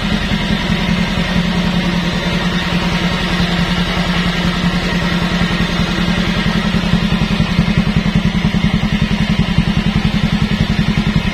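Automatic scooter's single-cylinder four-stroke engine idling through a Suzuki Satria FU four-stroke silencer, a steady rapid exhaust putter with a smooth, bassy note.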